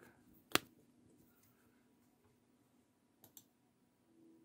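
Small sharp clicks of a precision screwdriver and tiny screw against a phone's mainboard: one clear click about half a second in, then two faint clicks just after three seconds.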